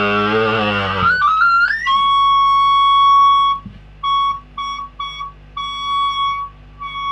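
Acoustic feedback through a small kit audio amplifier and its speaker: about a second of an amplified voice, then a tone that climbs into a steady high whistle. From about halfway in the whistle cuts in and out in short squeals as the volume knob is turned.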